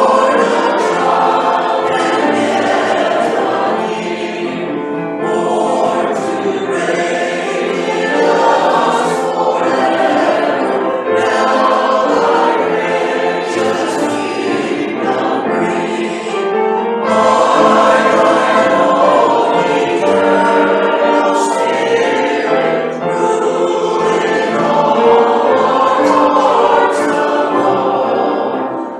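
A choir of voices singing a hymn in sustained notes.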